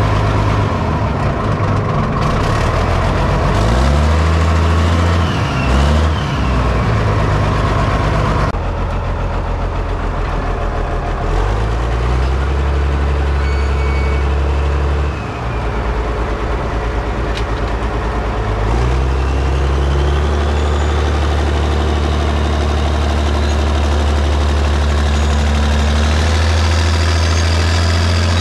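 Caterpillar 977K track loader's diesel engine running, its pitch rising and falling several times as it is throttled up and down while the machine drives on its tracks.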